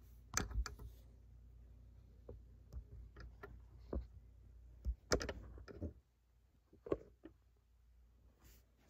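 Handling noise from a handheld camera: irregular light clicks and knocks, the loudest near the start, about five seconds in and about seven seconds in. A low hum sits under the first six seconds.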